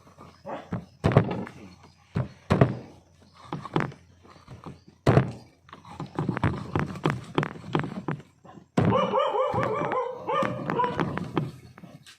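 A knife chopping through a fish on a cutting board: a series of heavy thunks, spaced out at first, then coming quickly for a couple of seconds. From about nine seconds in, a dog's voice calls out for a few seconds.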